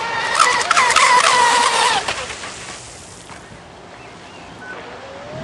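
Lehner brushless electric motor of an RC speedboat whining at high speed, its pitch wavering as the hull skims over the chop, with sharp slaps and spray hiss. The whine fades away about two seconds in.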